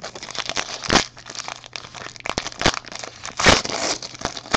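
Plastic-foil trading card pack wrapper crinkling and being torn open, with loud crackles about a second in and again near three and a half seconds.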